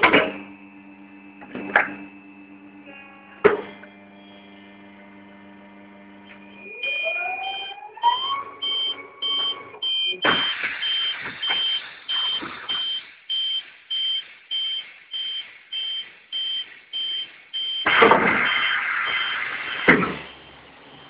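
Snap-on Quadriga tyre changer working: a steady electric hum with a few sharp clicks, then a rising motor whine about seven seconds in. After that a high warning beep repeats about twice a second, over louder bursts of noise around ten seconds in and again near the end.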